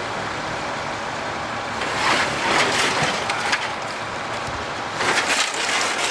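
Office interior being demolished: two bouts of crashing and clattering debris, about two seconds in and again near the end, over a steady rushing background.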